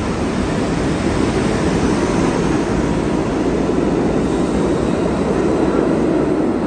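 New York City subway 1 train running, a loud steady noise.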